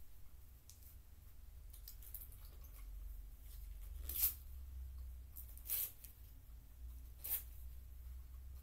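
Cardboard toy packaging being torn by hand in short rips. Three louder rips come about a second and a half apart in the second half, over a low steady hum.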